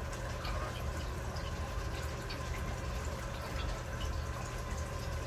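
Steady low hum with an even, water-like hiss over it and a few faint small clicks scattered through.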